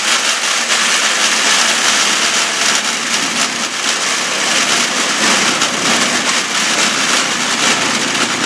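Homemade rail draisine travelling along the track: a steady loud running noise from its small engine and its wheels rolling over the rails.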